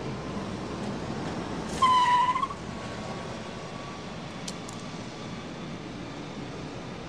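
Steady city-street traffic noise, interrupted about two seconds in by a brief, loud high-pitched tone lasting under a second.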